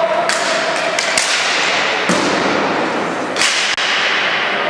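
Ball hockey play in a reverberant hall: several sharp clacks of sticks striking the ball and the ball hitting the boards, spread over a few seconds, over a constant noisy din.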